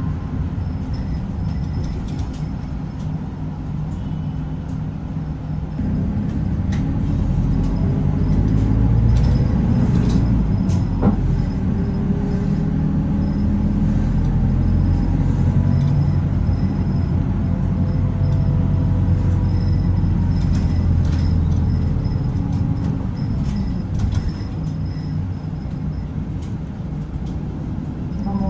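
City bus engine and road noise heard from inside the cabin as the bus drives along. It gets louder about six seconds in, and the engine pitch climbs as the bus speeds up.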